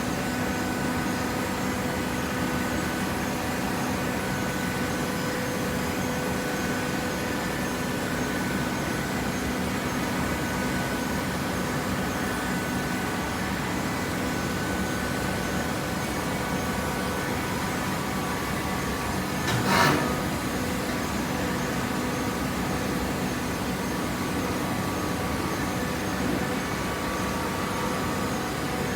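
Hydraulic cardboard baler running: a steady machine hum with several steady tones from its motor and pump, and one brief, louder burst of noise about twenty seconds in.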